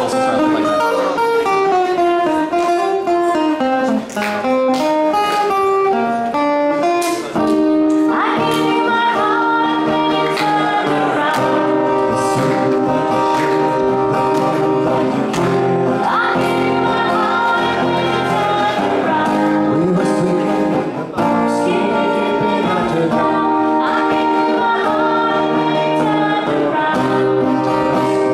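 Live band playing a song: a strummed acoustic guitar with a sung lead vocal over it, continuous and loud through the PA.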